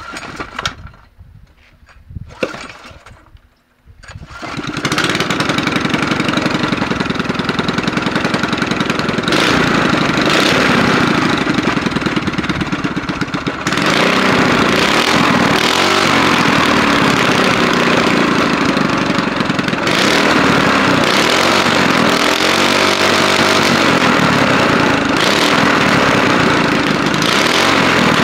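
Honda GX200 clone, a single-cylinder four-stroke small engine fitted with a GX160 head, rod and flywheel, starting up: a few short sounds, then it catches about four seconds in and runs steadily. It runs louder from about halfway through, with the speed rising and falling briefly near the end.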